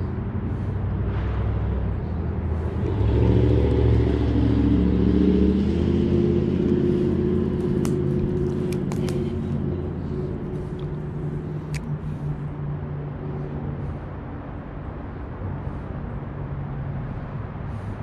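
Road traffic: a motor vehicle's engine runs past, loudest about three to six seconds in and then slowly fading to a steady hum. A few sharp clicks come about halfway through.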